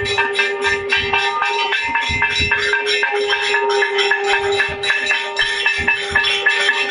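Hindu temple aarti: bells and cymbals clanging rapidly and evenly, several strikes a second. Irregular drum beats and a steady held tone sound beneath them.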